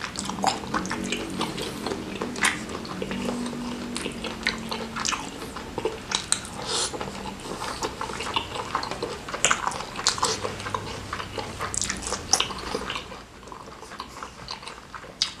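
Close-miked wet chewing and lip smacking of a mouthful of squid in thick chili sauce, then sucking and licking sauce off the fingers, with many small mouth clicks. A low steady hum sounds over the first five seconds.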